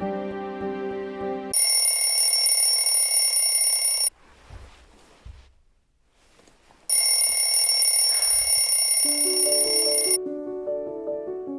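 Wake-up alarm ringing with a loud, steady bell jangle in two bursts of about three seconds each, separated by a short quiet pause. Soft music plays at the start, and a light plucked tune comes in near the end.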